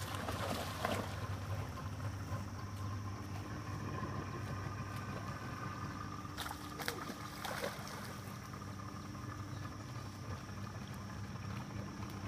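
A small engine running steadily with an even hum, with a few brief knocks or splashes about a second in and again around seven seconds.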